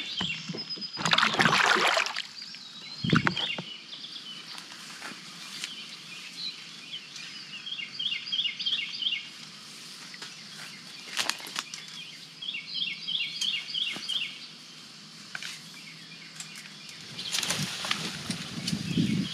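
Brush and vines rustling and snapping as someone pushes into a dense thicket, loudest about a second in and again near the end. A songbird sings short runs of quick repeated chirps several times.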